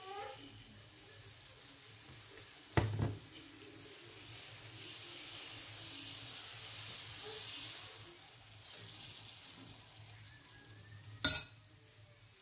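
Dosa batter sizzling on a hot nonstick pan while a ladle spreads it in circles, a steady hiss. Two sharp knocks stand out, one about three seconds in and one near the end.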